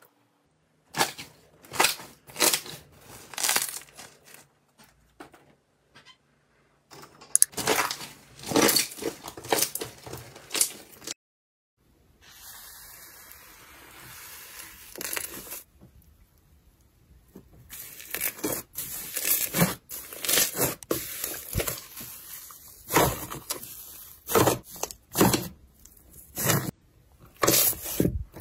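Sticky slime being pressed, pulled and stretched by hand, giving clusters of quick clicks and crackles. Midway there are a few seconds of steadier scraping over bubbly foam slime, then dense crackling and popping again.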